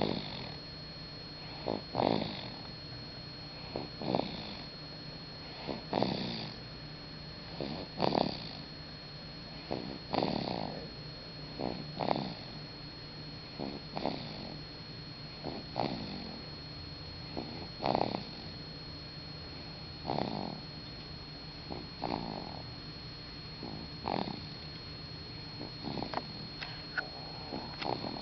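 Six-week-old baby snoring in its sleep, one snoring breath about every two seconds in a steady rhythm.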